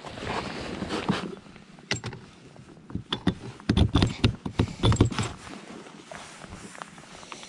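Handling noise from a Water Master Kodiak inflatable raft gripped by its metal frame: rustling at first, then a cluster of thumps and knocks in the middle, with a few metallic clicks.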